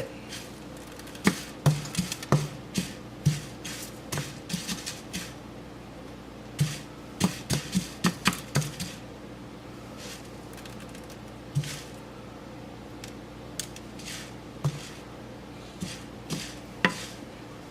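A cooking utensil knocking and scraping against a pan as red lentils are stirred while dry-roasting, in scattered clusters of sharp clicks, over a steady low hum.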